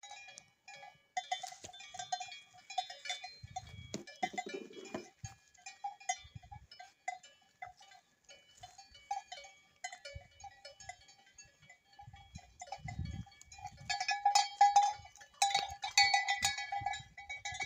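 Cowbells on grazing cattle clanking irregularly, with many uneven strikes; the clanking grows louder and busier over the last few seconds as the herd moves close.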